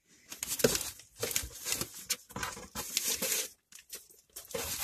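Packaging being handled and crinkled, in irregular rustling bursts as items are moved and pulled out of the box.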